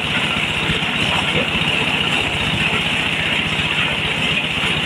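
Diesel-driven mobile corn sheller running steadily under load. The engine beats fast and evenly beneath a continuous hiss from the threshing drum as corn is fed in.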